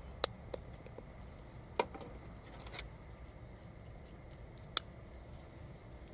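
Small wood fire crackling in a compact camp stove: a handful of sharp, irregular pops over a steady low rumble.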